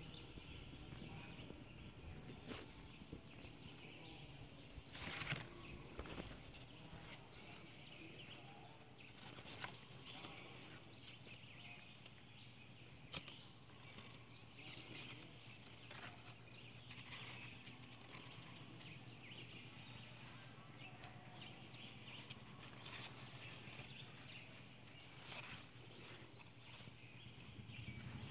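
Faint outdoor background: a steady low hum and a soft high hiss, broken by a handful of brief, scattered clicks.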